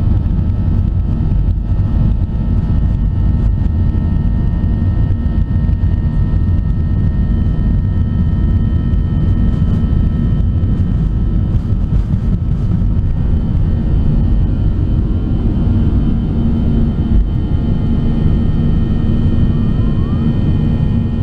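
Boeing 737-800's CFM56-7B turbofan engines at takeoff thrust, heard from inside the cabin during the takeoff roll. A loud, steady rumble mixed with runway rumble, with high steady whining fan tones over it.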